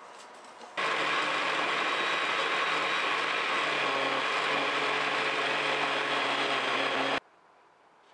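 A small electric motor runs steadily for about six seconds, starting and stopping abruptly.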